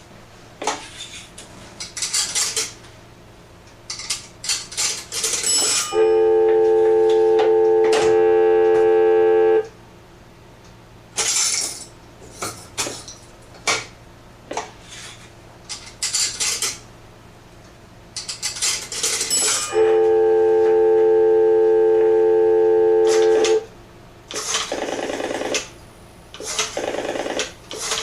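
Antique Western Electric three-slot payphone being handled, with clicks and rattles, and a steady telephone tone heard twice, each time for about three and a half seconds before it cuts off. Near the end comes a dense rattling.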